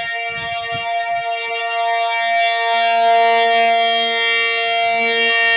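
Civil defense-style siren sounding a steady tone with a stack of overtones and no rise or fall in pitch. A second, lower steady tone joins about two seconds in, and the siren grows louder.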